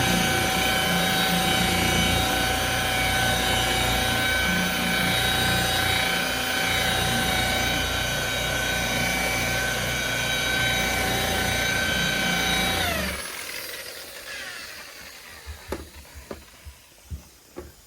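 Electric car polisher (buffer) spinning up and running at a steady whine for about thirteen seconds, then winding down. It is buffing a paint-correction test spot on old, worn paint with a mid-grade polish rather than a heavy cutting compound. A few light taps follow after it stops.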